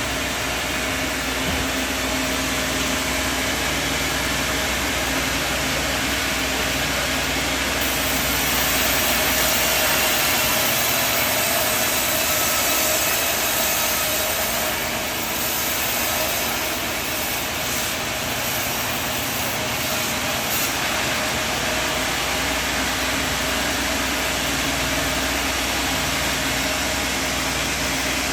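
Sawmill machinery running steadily: motor and saw make a constant loud whirring hiss with a steady hum. The hiss grows brighter and sharper for a stretch in the middle, then settles back.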